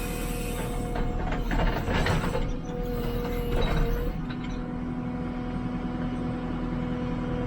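JCB 3CX backhoe loader running under work, its diesel engine and hydraulics giving a steady whine, with a stretch of clanking and rattling from about one to four seconds in.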